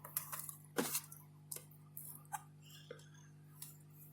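Scattered light clicks and taps of the laptop and small parts being handled on a workbench, a handful of separate ticks spread through, over a steady low electrical hum.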